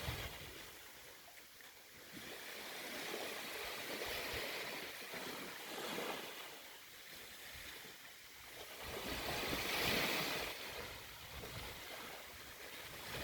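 Sea waves washing onto a beach: the surf swells and fades in slow surges, the biggest one about ten seconds in.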